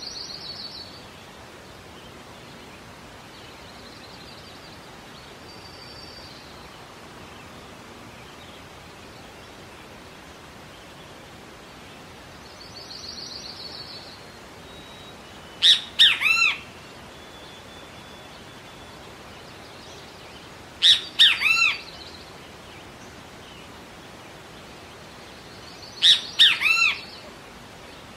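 Wild bird calling over a steady outdoor hiss: three loud calls about five seconds apart, each a quick run of two or three notes sliding downward, with fainter high chirps between them.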